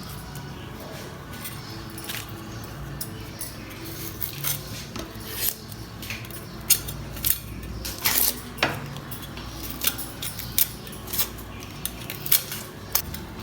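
Scattered clinks and knocks of kitchen dishes and utensils being handled, sparse at first and more frequent from about five seconds in.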